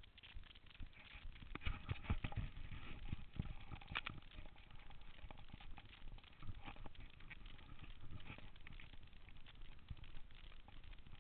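A trail runner's footfalls on a dirt and gravel path: an uneven patter of soft thuds and scuffs, heaviest about two seconds in, with a sharp click near the middle.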